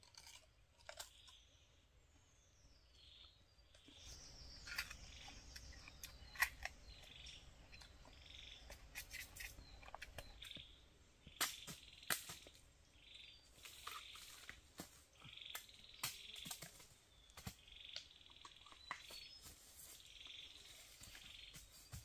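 Crisp snaps, cracks and rustles from bamboo shoots being handled and stripped by hand. Behind them, short rasping animal calls repeat about once a second.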